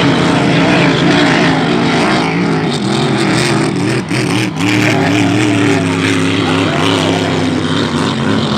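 Racing hydroplane engine running hard out on the lake, its pitch wavering up and down, with a brief drop about four seconds in.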